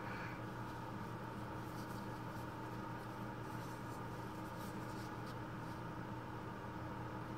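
Faint, sparse scratching and crinkling from disposable-gloved hands handling ointment and a cotton swab close to the microphone, over a steady low electrical hum.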